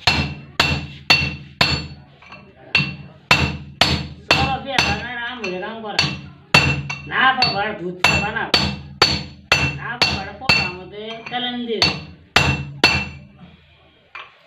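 Hand hammer striking the steel shaft of a rice huller, about two ringing metal-on-metal blows a second for some thirteen seconds, as the bent shaft is hammered to straighten it. Men's voices come in between some of the blows.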